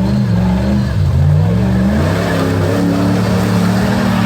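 Jeep Grand Cherokee engine revving under load off-road: the pitch dips about a second in, climbs over the next second, then holds steady at high revs.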